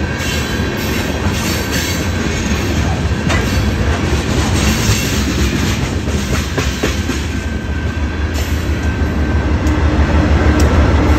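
A freight train of tank cars rolling past close by, its steel wheels rumbling and clattering on the rails. Near the end a BNSF diesel locomotive's engine comes past, adding a deep, steady drone.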